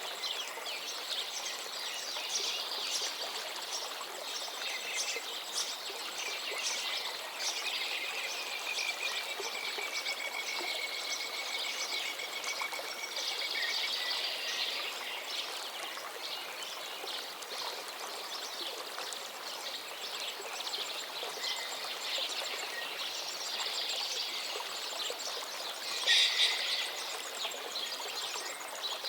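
A river running steadily, with birds chirping and singing over it. A long, thin, slightly falling whistle is heard about a third of the way in, and a louder burst of calls near the end.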